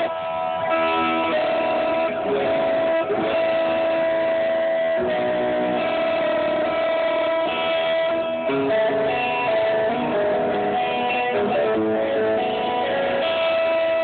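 Live band music led by electric guitar chords, heard through the stage's JBL line-array speakers during a sound check.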